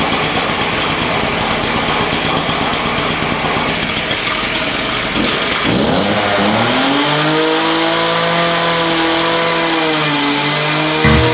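A two-stroke gas cut-off saw revs up sharply about halfway through and holds high revs while its abrasive wheel cuts steel, throwing sparks. Its pitch sags a little near the end as the cut loads it. Before that there are several seconds of steady noise.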